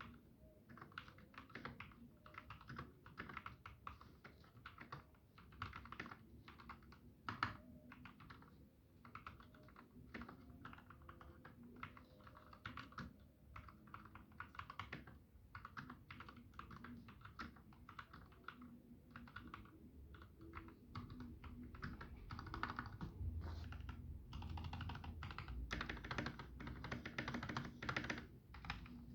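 Typing on a Keychron K6 mechanical keyboard with lubed Gateron Milky Yellow linear switches, keystrokes clacking in quick irregular runs. The typing grows faster and denser in the last few seconds.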